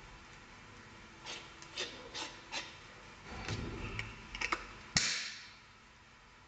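End cap being twisted and fitted onto a stainless steel manual salt and pepper grinder: a string of light clicks and ticks, then a sharper click with a brief rustle about five seconds in.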